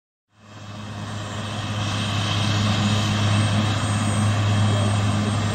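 Denel AH-2 Rooivalk attack helicopter running on the ground with its rotors turning: a steady low drone with a wide hiss above it. It fades in over the first two seconds, then holds steady and loud.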